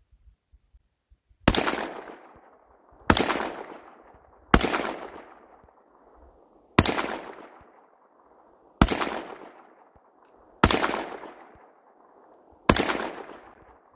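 Seven slug shots fired one after another from a Panzer EG200 gas-operated semi-automatic shotgun, about one and a half to two seconds apart, each followed by a fading echo. The gun cycles every round without a jam.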